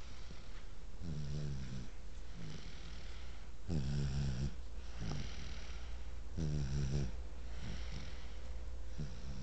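Snoring in sleep: three long pitched snores come about every two and a half to three seconds, with softer, shorter breaths in between.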